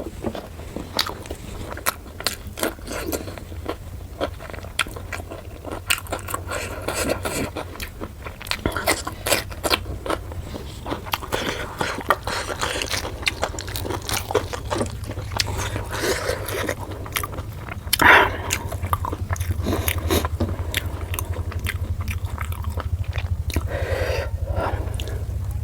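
Close-miked eating of puri with chicken curry: chewing and biting with many small wet mouth clicks and smacks, and one louder bite about two-thirds of the way through, over a steady low hum.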